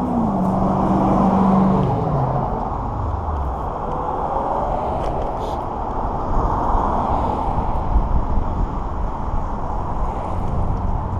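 Steady rushing wind and road noise while riding an electric scooter along a pavement, with traffic running alongside. A vehicle engine's tone falls steadily in pitch over the first three seconds.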